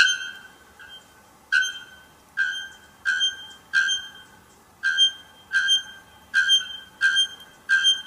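Male bare-throated bellbird calling: a run of short, loud, ringing metallic notes, about one every two-thirds of a second, with a brief pause midway.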